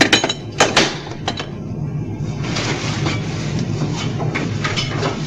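A few sharp knocks and clanks, then a steady hiss with scattered clicks from about two seconds in, over a constant low hum.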